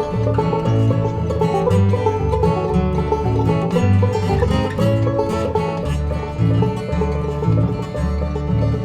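Instrumental break in a country-bluegrass song: plucked string instruments playing over a bass line that steps between notes on the beat.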